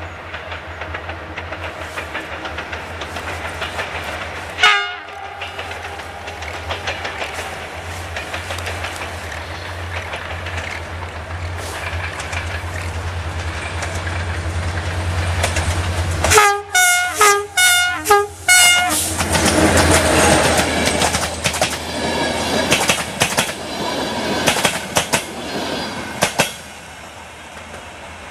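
Locomotive-hauled passenger train approaching with a low rumble. Its horn gives one short blast about five seconds in, then a quick string of about five short toots around the middle. The carriages then pass with wheels clattering over the rail joints, fading out sharply near the end.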